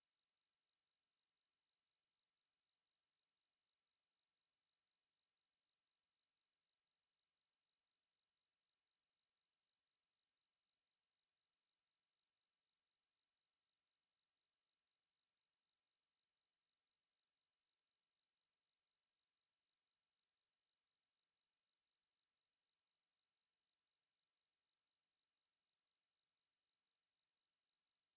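A steady pure sine-wave test tone at 4681 Hz, one high-pitched unbroken note at a constant level.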